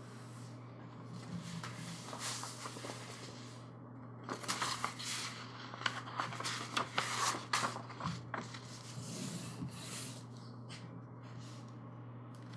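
Large glossy paper sheets rustling and crackling as they are turned over and flattened by hand, busiest in the middle with several sharp paper snaps. A steady low hum runs underneath.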